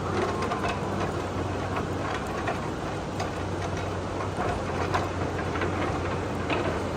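A heavy machine's engine running steadily, with scattered clicks and rattles over it.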